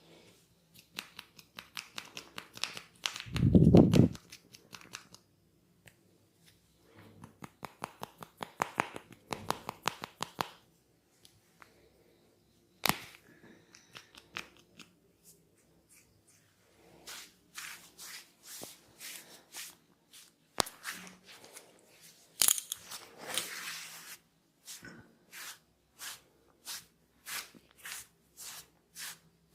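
Percussive massage strokes: runs of quick, sharp taps and slaps on the body. There is one heavier, deeper slap a few seconds in and a single sharp crack near the middle. The last third has slower, evenly spaced taps, about two or three a second.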